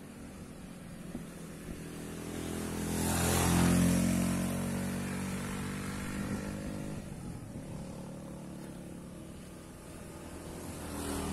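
A small motorcycle's engine passing by, growing louder to a peak about three to four seconds in and then fading, with another motorcycle approaching near the end.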